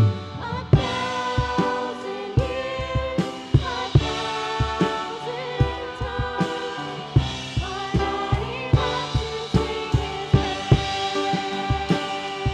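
Live contemporary worship song: several voices singing together over piano, with a drum kit keeping a steady beat of about two hits a second.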